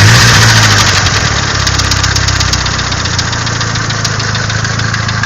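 Nissan SR20DET turbocharged 2.0-litre four-cylinder engine running with a fast, regular knocking. The revs rise briefly at the start, then settle back to idle.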